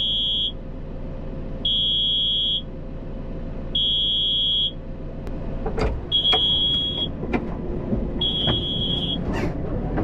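JCB Loadall 531-70 telehandler's handbrake warning buzzer beeping: a high tone about a second long, repeating every two seconds or so, sounding because the handbrake is off with the operator out of the seat. The telehandler's diesel engine idles underneath, with a few knocks in the second half.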